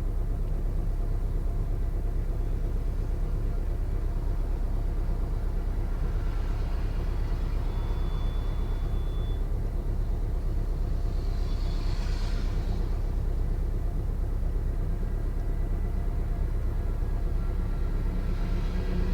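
2003 Toyota Corolla's four-cylinder engine idling steadily, still running while the kill-switch timer counts down to cut the ignition.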